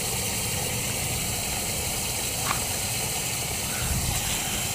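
Water rushing steadily from a leaking underground 3/4-inch copper water line into the sunken hole.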